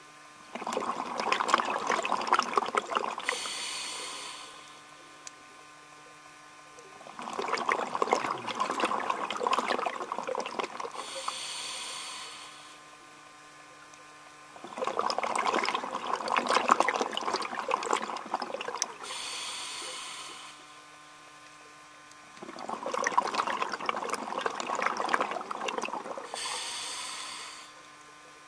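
A scuba diver breathing through a regulator underwater: four breaths about seven seconds apart, each a few seconds of bubbling and crackling that ends in a short hiss, with quiet pauses between.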